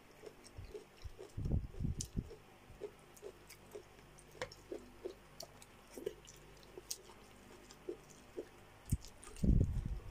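Close-miked chewing and mouth sounds of someone eating chicken and cabbage soup, with many small scattered clicks. Clusters of low bumps come about a second and a half in and again near the end.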